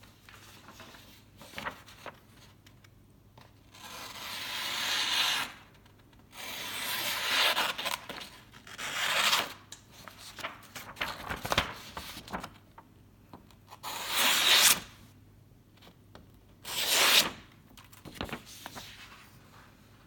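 A sharp Damascus-steel folding knife blade slicing through paper: about five separate cutting strokes, each a rasping hiss lasting half a second to two seconds, with a few faint clicks between them.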